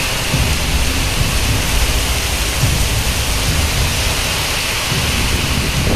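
Heavy rain pouring down in a steady, even hiss, with a low, uneven rumble underneath.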